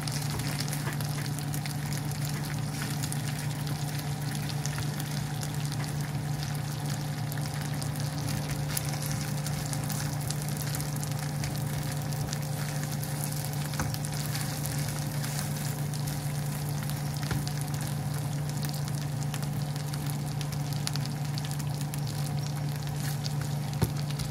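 Chicken pieces sizzling and crackling as they fry in a nonstick pan, over a steady low hum. A single sharp click near the end.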